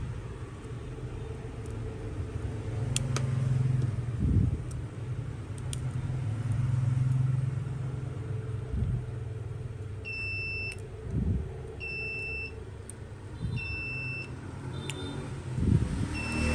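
A steady low hum with a few scattered clicks and soft knocks. From about ten seconds in, short high electronic beeps repeat about every two seconds, four in all.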